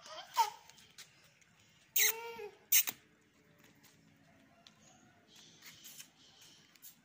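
A short, high-pitched cry about two seconds in, followed by a single sharp click. A brief sliding vocal sound comes at the very start.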